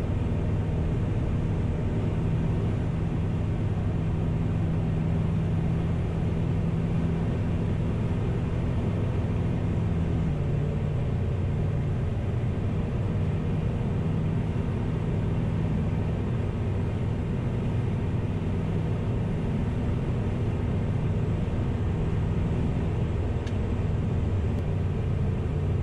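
Sling 4 light aircraft's Rotax 914 turbocharged flat-four engine and propeller droning steadily in cruise, heard from inside the cabin. The pitch dips slightly about ten seconds in.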